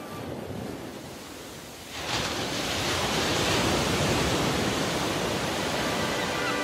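Ocean surf: waves breaking and washing. Softer at first, then louder and steady from about two seconds in.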